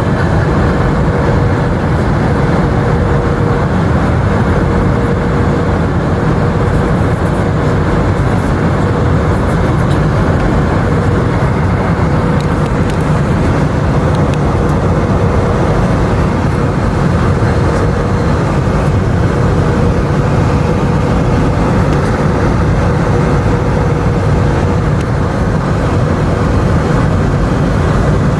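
Steady cabin noise inside an Airbus A319-100 airliner: engine and airflow noise make a constant low rumble, with a steady hum running through it.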